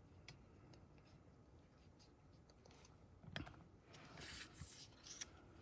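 Faint paper handling on a desk: a few light taps and clicks, with a short rub of paper sliding about four seconds in.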